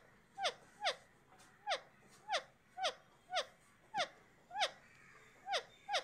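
Rose-ringed parakeet giving a series of about ten short calls, each sliding downward in pitch, roughly two a second with uneven gaps.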